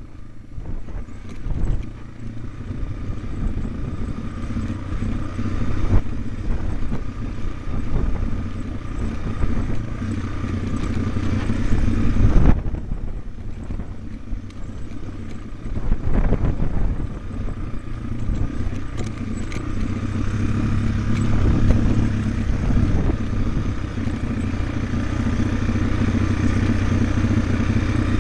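Yamaha TW200's single-cylinder four-stroke engine running at low speed on a rough rocky trail, with occasional knocks and clatter from the bike over rocks; the sharpest knock comes about halfway through. The engine note grows steadier and a little louder toward the end.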